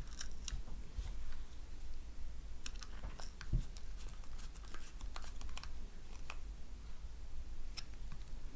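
Faint, irregular small clicks and scrapes of a Phillips screwdriver turning a small screw back into the back of a garage door opener remote's case.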